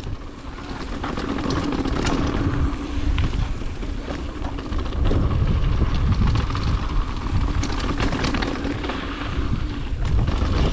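Mountain bike rolling down a dirt trail: wind rushing over the microphone and tyres on the ground make a heavy low rumble, with scattered clicks and rattles as the bike goes over bumps.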